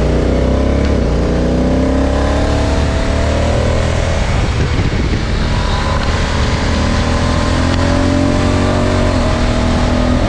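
Motorcycle engine accelerating on the road: its pitch climbs steadily, falls back around four to five seconds in, climbs again and drops about nine seconds in, as at upshifts.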